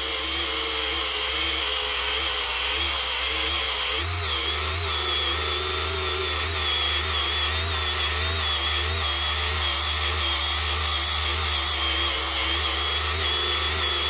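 Cordless AC Delco mini rotary polisher running steadily, its foam pad buffing polish into car paint, with a motor whine that wavers slightly and dips briefly about four seconds in. Its half-flat battery sounds like it's about to give up.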